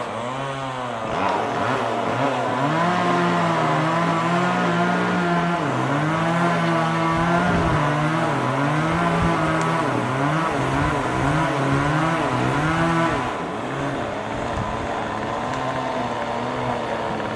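Chainsaw engine running at high revs, its pitch wavering up and down as it cuts under load; it eases to a lower, quieter run about thirteen seconds in.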